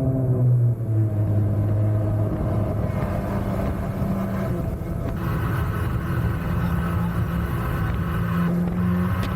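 MotoJet mini jet boat's engine running under way. Its note drops a little under a second in, rises again about two seconds in, then holds steady.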